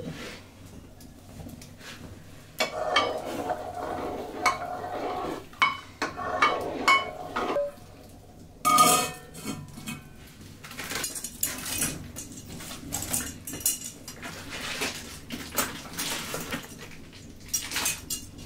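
Stainless steel pots, lids and utensils clinking and clattering in short runs, with one loud clank about nine seconds in.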